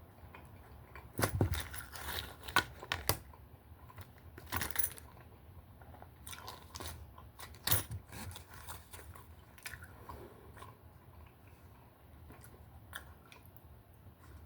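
A person chewing and biting into a hot chili dog, with irregular sharp mouth clicks and smacks, the loudest ones in the first few seconds and about eight seconds in.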